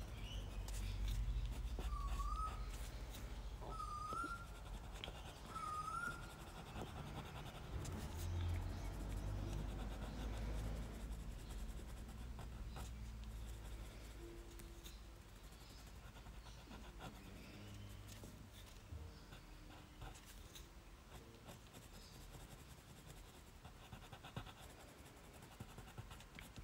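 Black Prismacolor coloured pencil scratching across textured Mi-Teintes paper as a thick dark border is shaded in, fading out about halfway through. Three short rising chirps sound about two seconds apart early on.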